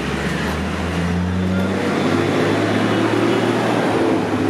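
A motor vehicle engine running steadily, a low even hum over street noise, growing a little louder toward the end.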